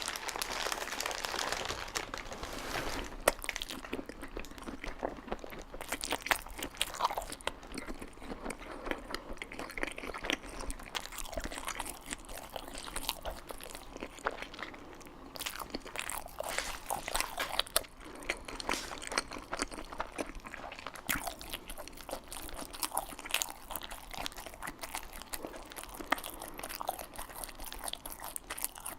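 Close-miked biting and chewing of chili dogs, with irregular small crunches and mouth sounds.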